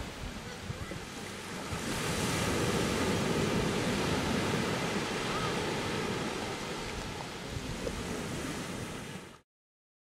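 Small waves breaking and washing up a sandy beach, with wind buffeting the microphone; the surf grows louder about two seconds in and the sound cuts off abruptly near the end.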